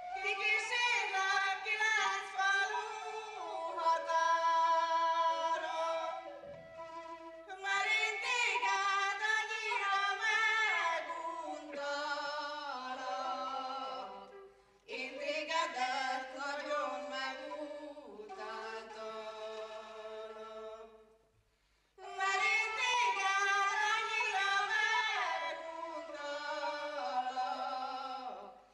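A woman singing a folk song solo in four long phrases, with short pauses for breath between them.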